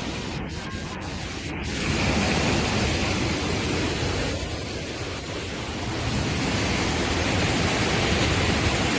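Fast-flowing floodwater rushing, a steady dense noise that grows louder about two seconds in and eases briefly near the middle.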